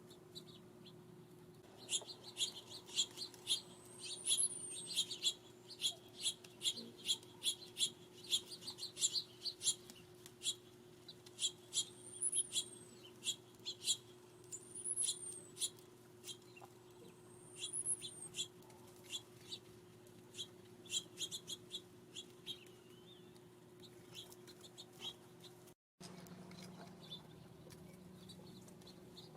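Small songbirds calling at a feeder: a rapid, irregular run of short, high chip notes, with a few thin slurred whistles that rise and fall, over about twenty seconds. The calls thin out after that, and the sound cuts out for a moment near the end.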